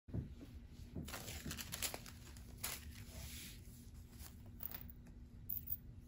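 Paper being handled, with several short bursts of crinkling and rustling, the loudest about one to two seconds in, as a sheet of blue paper is laid down on the table.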